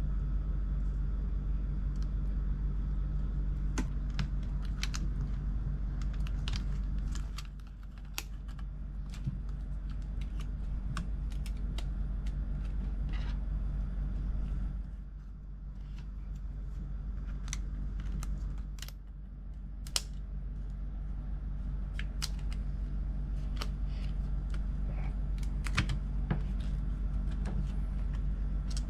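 Small irregular clicks and taps of hand tools and parts during the disassembly of a MacBook Pro, over a steady low hum.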